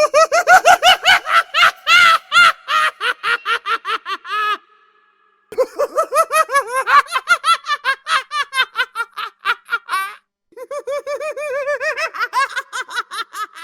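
Clown laugh sound effect: a high-pitched, rapid cackling laugh in three bouts, broken by two short pauses, at about five ha's a second.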